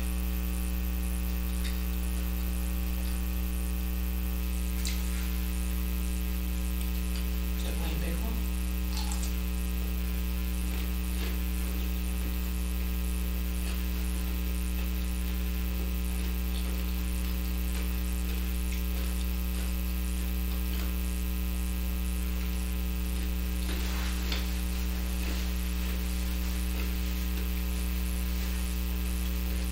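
Steady electrical mains hum picked up by the recording, with a few faint chewing and eating sounds now and then.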